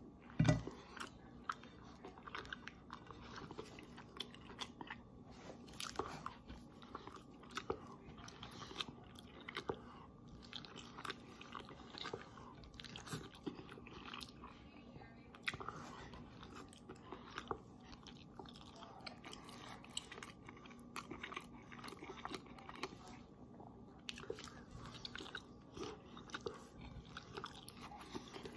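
Close-up chewing and crunching as a person eats toast and pasta straight off the plate with the mouth: irregular crunches, bites and mouth sounds, with a louder one just after the start.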